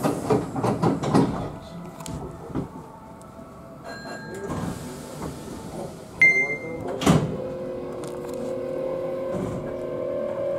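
Hankyu electric commuter train departing from a station: a short electronic beep, the doors sliding shut with a loud thud about seven seconds in, then a steady motor whine as the train starts to pull away.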